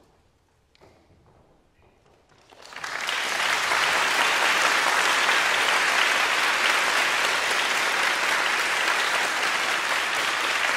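Audience applause: after a near-silent pause with a few faint knocks, the clapping starts about two and a half seconds in, swells quickly and then holds steady.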